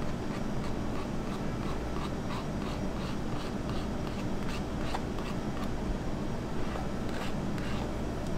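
Rhythmic scratchy strokes, about three a second for several seconds, thinning to a few scattered strokes later, over a steady low hum.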